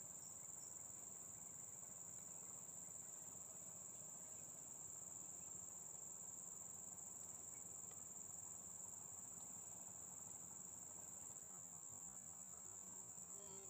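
Steady high-pitched drone of insects shrilling, with a few faint short chirps at the very start.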